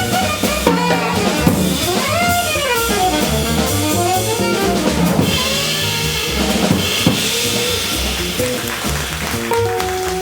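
Live jazz combo playing, with the drum kit to the fore (snare and bass drum) over a bass line and a bending melodic lead.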